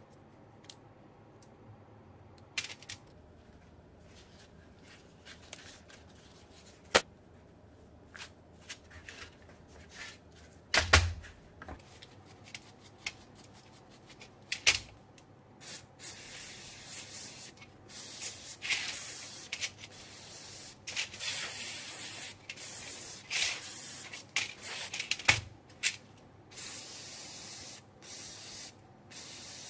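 Clicks and knocks of small motor parts being handled, with a heavier thump about eleven seconds in. Then a bristle brush scrubs a cordless drill motor in short strokes, and an aerosol can sprays onto the motor through its straw in hissing bursts.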